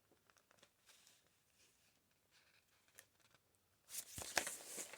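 Paper pages of a junk journal being handled and turned, rustling and crinkling; faint light ticks at first, then louder rustling from about four seconds in.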